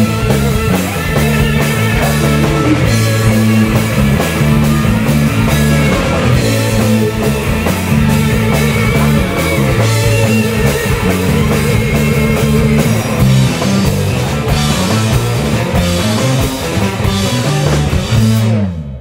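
Live rock band playing at full volume: electric guitars, bass guitar and drum kit. The song ends with a sudden stop right at the end.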